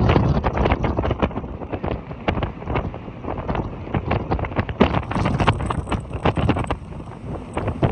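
Storm-force gale wind buffeting the microphone in rapid, uneven gusts on the deck of a tall sailing ship at sea.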